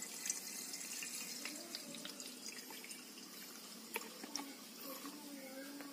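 Faint trickle of water poured from a plastic jug through a plastic funnel into a cell of a lead-acid battery, topping up a cell whose water level was low. A few light clicks come about two thirds of the way through.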